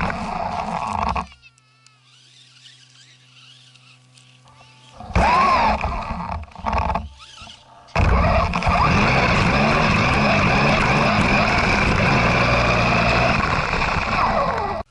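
RC 4x4 truck driving through snow, heard from a camera on the truck itself: tyres in snow chains churning through snow with the motor running. It comes in spells, briefly at the start, again about five seconds in, and steadily from about eight seconds in, with quiet pauses between.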